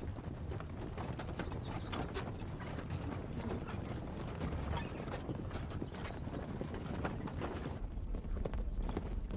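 Many horses' hooves clopping over hard ground, with the creaking and rattling of wooden-wheeled carts. Near the end the sound changes to a single horse galloping.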